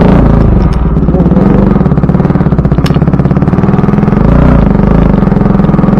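Bajaj Pulsar NS200's single-cylinder engine running loud through an aftermarket Akrapovic exhaust as the bike pulls away at low speed: a rapid, steady pulsing note that changes briefly about four seconds in. Two short sharp ticks come in the first few seconds.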